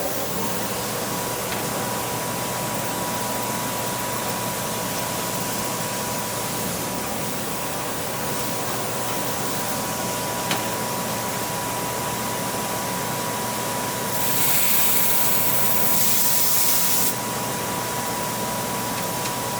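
Glass laser drilling machine running a drilling job: a steady machine hiss with a thin steady whine. A single click comes about halfway, and a louder, brighter hiss swells for about three seconds near the end.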